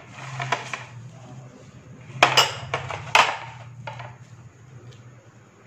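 A bowl and a knife clattering on a tray: a few knocks and clinks, the two loudest about two and three seconds in, over a steady low hum.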